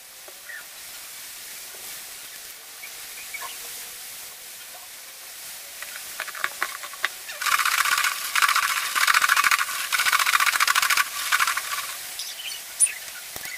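Fried taro sticks shaken inside a covered plastic food container: a dense, rapid rattle lasting about four seconds, after a few clicks as the lid is handled.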